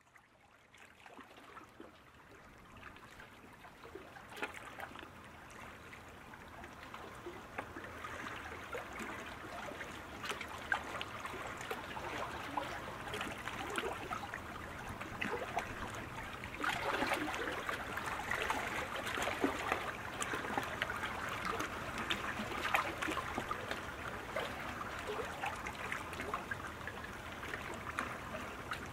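Aquarium water trickling and bubbling, a steady wet trickle with fine crackling ticks, fading in over the first several seconds.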